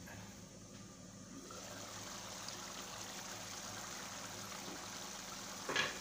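Curry simmering in an open pot on a gas stove, a soft steady bubbling hiss that grows louder about a second and a half in as the lid comes off. A short sharp knock near the end.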